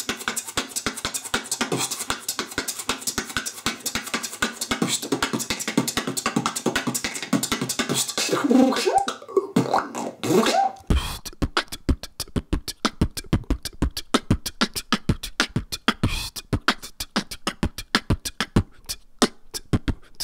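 Solo beatboxing: a fast run of clicking mouth percussion, with a few sliding pitched vocal sounds near the middle. About eleven seconds in it switches abruptly to a different beatbox beat, more spaced out and with deeper bass.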